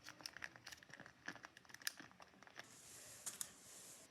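Faint handling noise: scattered small clicks and crinkles, the sharpest a little under two seconds in, then a soft hiss with two more clicks near the end.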